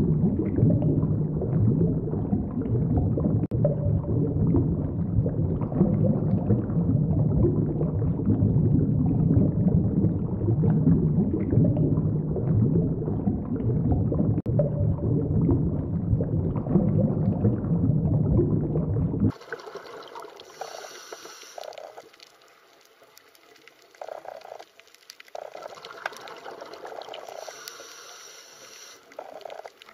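Underwater ambience: a dense, low rumble of moving water with bubbling and gurgling. About two-thirds of the way through it cuts off abruptly to a much quieter, thinner water sound with faint steady tones.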